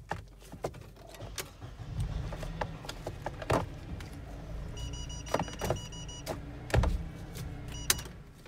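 Plastic gear-selector trim and shift boot of a Mercedes W203 console being handled and pressed into place: scattered clicks and knocks over low rustling, the loudest near the end. A short pulsing electronic beep sounds about five seconds in.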